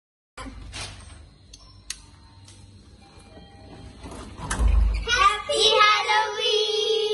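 A group of children singing together loudly, starting about five seconds in, after a few faint handling noises, a click and a low thump.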